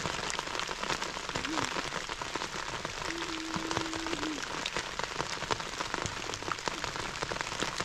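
Steady rain falling on fallen dry leaves and wet ground, with many close individual drop hits.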